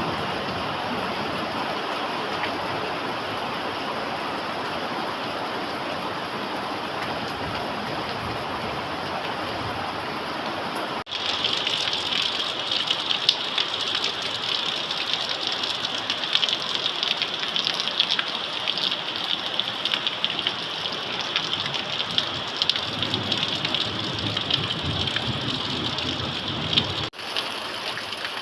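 Steady rainfall. About eleven seconds in the sound changes abruptly to a sharper, closer patter full of individual drop ticks, and it changes again shortly before the end.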